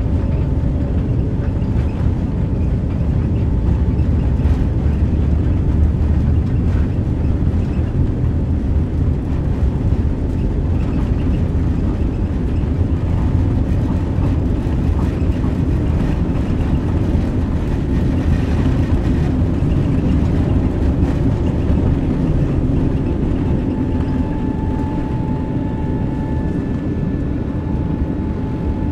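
Steady low rumble of a Boeing 777-300ER's GE90-115B engines and airframe, heard inside the cabin. A faint steady whine comes in near the end.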